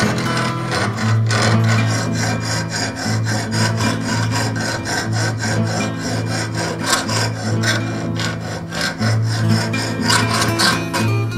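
Hand file rasping across a thin metal cut-out clamped in a bench vise, in repeated back-and-forth strokes. Background music with a steady bass runs underneath.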